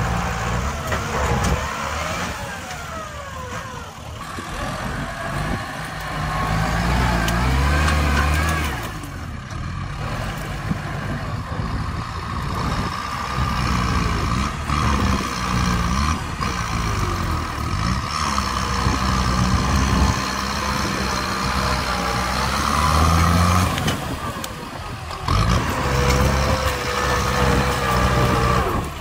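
Kubota tractor's diesel engine working hard as its front blade pushes soil and brush. The engine note rises and falls with the load, with a few abrupt breaks.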